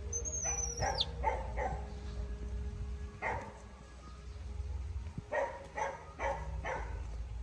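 Baby monkey crying in short, high squeals: three about a second in, one around three seconds, then four in quick succession near the end. These are the distress cries of a frightened baby calling for its mother.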